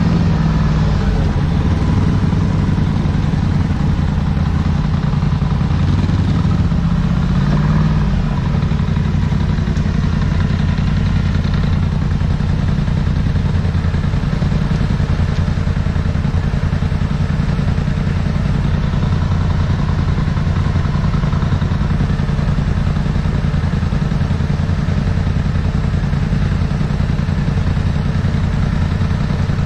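Polaris side-by-side's engine running close to the microphone. It revs up and down a couple of times in the first eight seconds, then holds a steady idle.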